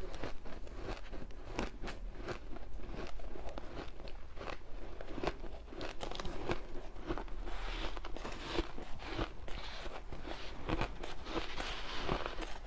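Shaved ice being bitten and chewed, a dense run of crisp crunches. Near the end, hands scooping the loose shaved ice add a rustling hiss.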